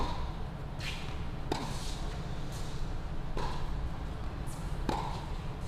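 Tennis rally: a tennis ball struck by strung rackets, three sharp pops about 1.5, 3.4 and 5 seconds in, with softer ball bounces and shoe sounds between them, over a steady low rumble.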